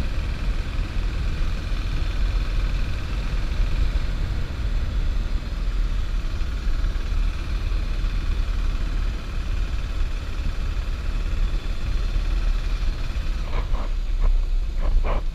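Motorcycle under way, heard from a rider-mounted camera: a heavy wind rumble on the microphone over a steady engine note. Near the end a few short, sharper sounds break through.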